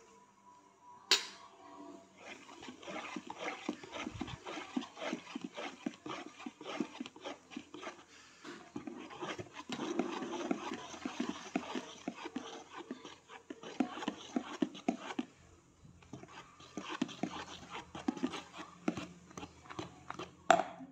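Wire whisk beating flour into thin cake batter in a plastic bowl: rapid, uneven clicking of the wires against the bowl, with a brief pause about two-thirds through. A single sharp knock comes about a second in.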